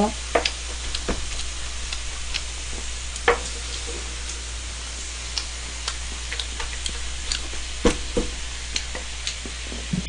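Spicy webfoot octopus and pork belly sizzling steadily on a hot grill pan, with scattered clicks and scrapes from a wooden spatula and a plastic spatula stirring the food.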